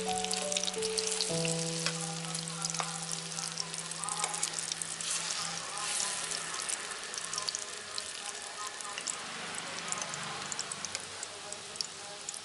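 Bitter melon and egg fritters sizzling and crackling in hot oil in a frying pan, with many small pops. Soft background music notes fade out in the first half.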